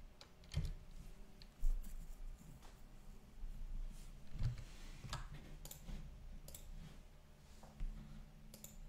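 A few scattered clicks of a computer mouse and keyboard, spaced irregularly about a second apart, over a low steady hum.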